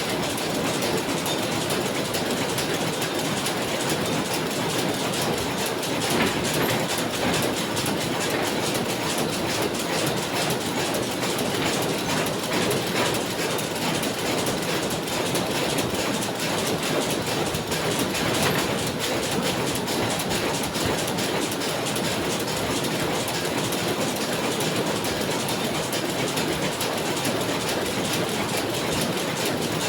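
A machine running with a steady, rapid mechanical clatter.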